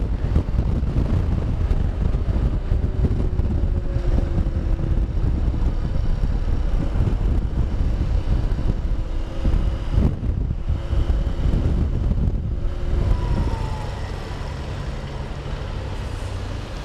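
Honda XR150L single-cylinder motorcycle engine running at road speed under heavy wind rush and road rumble on the handlebar camera's microphone. It gets noticeably quieter in the last few seconds as the bike rides slowly along a street.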